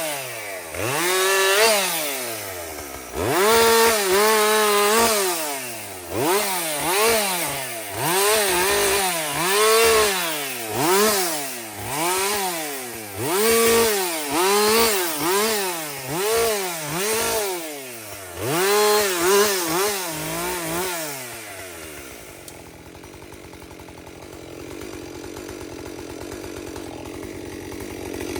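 Two-stroke chainsaw cutting pine, revved up and let back down over and over, roughly once every second or so. For the last several seconds it falls much quieter.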